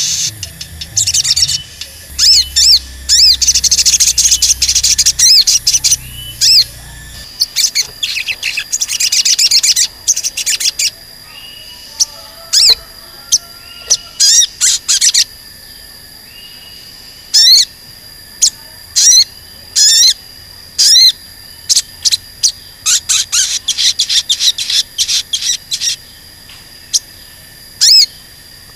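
Male olive-backed sunbird (sogon) calling with sharp, high 'cuit cuit' chirps. They come in quick, dense runs for the first ten seconds or so, then in short separate bursts. This is the vocal ('gacor') song used as a lure to get other sogon calling.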